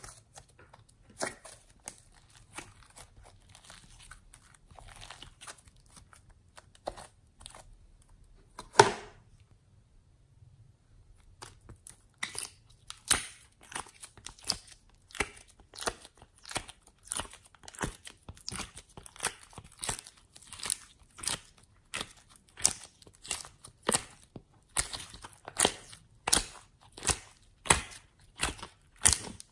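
Homemade slime mixed with clay being squeezed and kneaded by hand, giving a string of sharp crackling pops, about one to two a second. A loud pop comes about a third of the way in, followed by a short pause.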